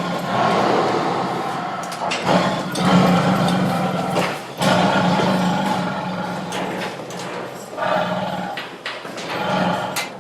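Tiger roaring: several long, loud calls with short breaks between them.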